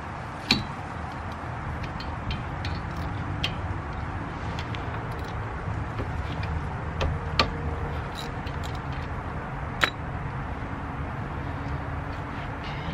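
Metal tool clinks on a disc brake caliper as the caliper bolts are worked loose: a few sharp single clicks, the loudest about half a second in, just past seven seconds and near ten seconds, over a steady low rumble.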